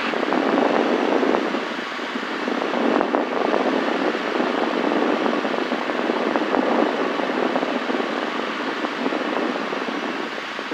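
Steady cabin noise of a Cessna 172 in flight: the engine, propeller and rushing air blend into one even roar.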